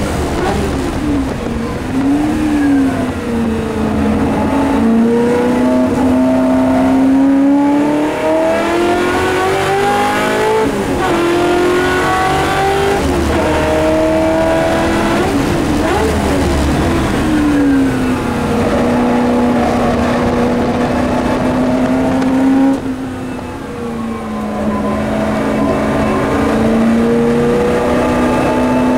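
Race car engine heard from inside the cabin at racing speed, its note rising under acceleration and falling at each gear change and lift for corners, over and over. About three-quarters of the way through, the engine note drops and quietens briefly as the throttle is lifted, then climbs again.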